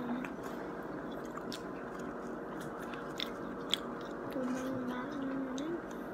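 Close-miked mouth sounds of a person biting into and chewing a soft flour-tortilla burrito, with scattered wet clicks and smacks. A short low hum of a voice wavers and rises about four and a half seconds in.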